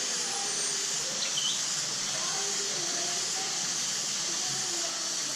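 Steady high hiss of outdoor background noise, with faint distant voices and a single short bird chirp about a second and a half in.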